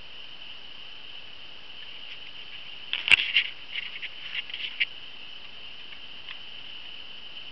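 A cluster of sharp clicks and knocks from about three to five seconds in, the loudest a single hard knock at the start: hard plastic toy vehicle parts knocking as the toy is handled. A steady high-pitched hiss underlies it throughout.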